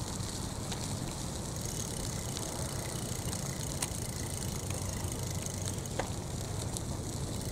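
20-inch folding bike (EuroMini Zizzo Campo) rolling along a concrete sidewalk: a steady low rumble of the tyres, with a few light clicks and rattles.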